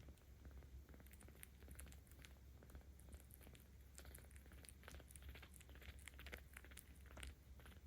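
A 17-day-old kitten purring while being petted: a low, steady rumble, with scattered light clicks and crackles over it, more of them in the second half.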